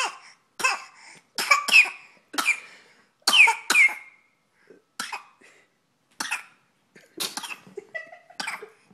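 A five-month-old baby's fake coughs: over a dozen short, deliberate coughs in a row, with brief gaps between them.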